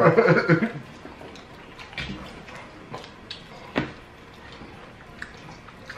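Quiet eating sounds from people eating fried chicken wings: scattered small clicks and mouth smacks, with one sharper click a little before four seconds in.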